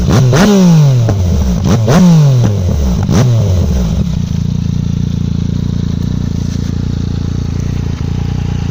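Yamaha Tracer 900 GT's 847 cc three-cylinder engine breathing through an Arrow 3-into-1 full exhaust with X-Kone silencer, revved in neutral. Three sharp throttle blips rise and fall away one after another, and about four seconds in it settles into a steady idle.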